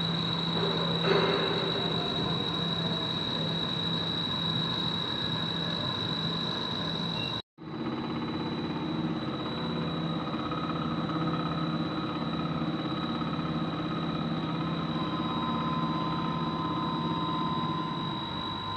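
CNC drilling machine running steadily, a constant high whine over a low hum. The sound cuts out for an instant about seven and a half seconds in.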